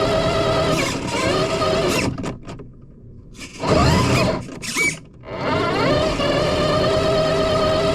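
FPV drone motors whining at a steady pitch. The throttle drops off twice, about two seconds in and again near five seconds, and the pitch slides back up each time.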